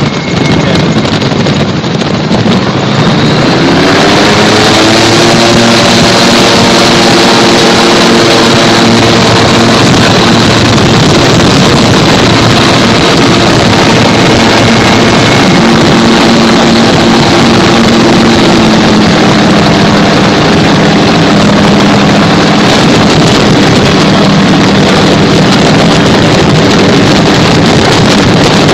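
Gyrocopter's engine and propeller running under a loud rush of wind on the microphone. About four seconds in, the engine note rises as power comes up, then holds steady, easing down slightly a little before twenty seconds.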